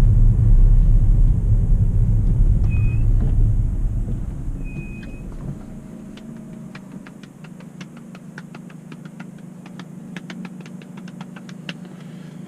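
Inside a Ford New Fiesta's cabin: low engine and road rumble while driving, fading over a couple of seconds as the car slows, leaving a quieter steady engine hum with faint rapid ticking. Two short high beeps come about three and five seconds in.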